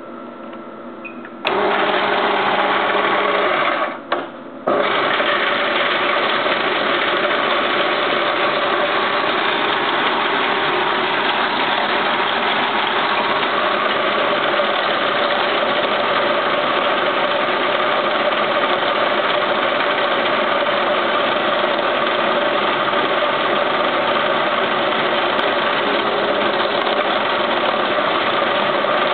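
Abacus C-2800 high-speed coin sorter starting up about a second and a half in, after a faint hum, and running steadily as it counts and sorts mixed coins. Its sound drops out briefly about four seconds in, then resumes and runs on evenly.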